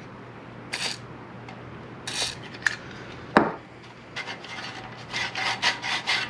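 Two short hisses of WD-40 sprayed from an aerosol can into a lawn mower engine's recoil starter, then a sharp knock about three seconds in as the can is set down. From about four seconds in comes a run of quick rasping strokes as the recoil pulley is twisted back and forth by hand inside the steel blower housing. The rewind spring gives no return, so the starter is taken to be shot.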